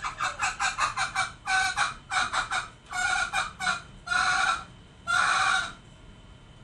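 Green junglefowl calling: a quick run of short notes, then a few clustered notes, ending with two longer hoarse calls about four and five seconds in.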